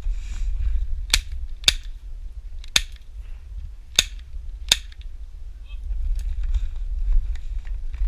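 Airsoft gun firing single shots: five sharp snaps spaced irregularly over about four seconds, starting about a second in.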